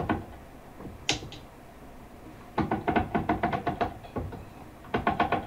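Ratchet on the beam of an Ashford SampleIt rigid-heddle loom clicking as the beam is turned to wind on the warp: a quick run of clicks, about eight a second, from about two and a half seconds in, and a second run near the end.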